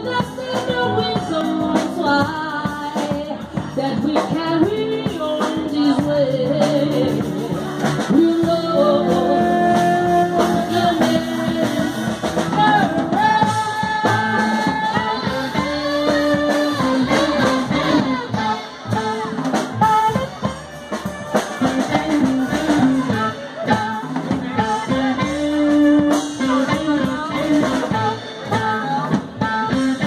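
Live band music with a singer: sung melody with long held notes over guitar and drums.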